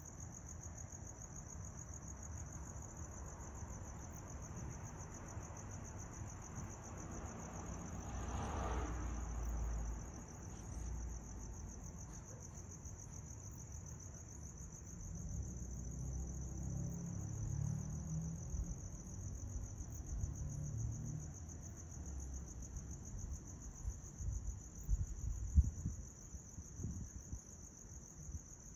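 Crickets chirping in a continuous high pulsing trill, over a low rumble of wind on the microphone. A few dull thumps come near the end, the loudest about twenty-five seconds in.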